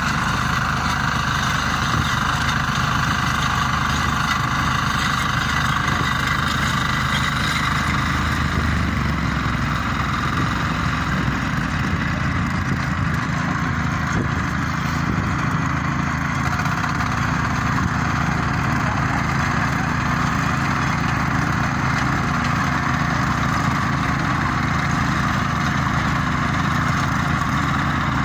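Motor hoe (walk-behind tiller) engine running steadily under load as its rotating tines churn the soil.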